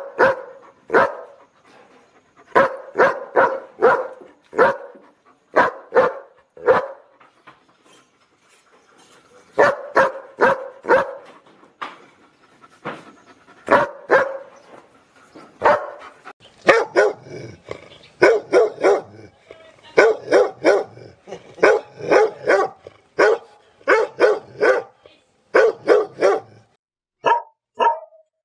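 Dog barking in repeated runs of several sharp barks with short pauses between them. About two-thirds of the way through, the barking turns quicker and denser.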